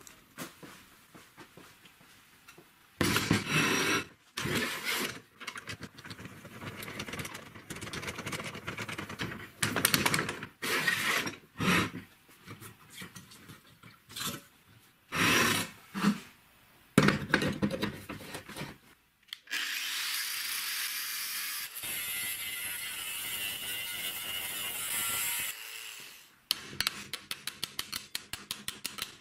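Workshop sounds of an old car strut-type shock absorber being taken apart: irregular knocks, clanks and handling of the metal strut, then a power tool running steadily for about six seconds. Near the end comes a quick series of hammer taps on the strut held in a steel vise.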